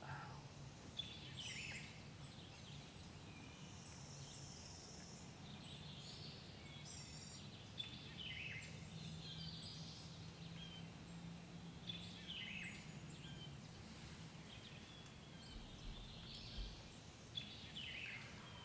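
Faint chorus of small songbirds chirping and singing, many short calls and quick downward-sweeping notes overlapping, over a low steady background rumble.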